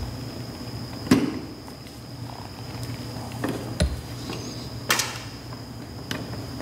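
Hands handling wires and a small crimp connector inside a plastic toolbox: scattered clicks and knocks, the sharpest about a second in, near four seconds and about five seconds in, over a faint steady hum.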